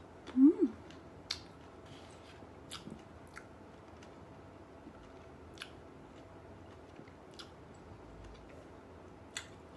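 A person chewing a fresh dark sweet cherry with the mouth closed: a brief hum about half a second in, then scattered faint wet mouth clicks.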